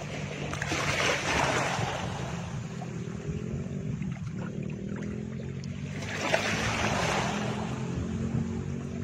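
Background soundtrack: a steady low sustained drone with two slow swells of rushing noise, one about a second in and one about six seconds in.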